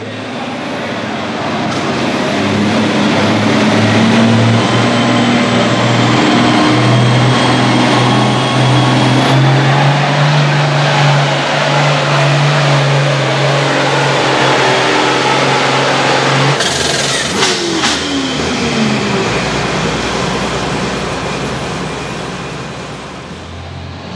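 International Harvester pulling tractor's diesel engine running flat out under load as it drags the weight sled, a steady drone with a high whistle over it. About 16 seconds in there are a few sharp knocks, the engine note falls away as the throttle comes off, and it settles to a lower run.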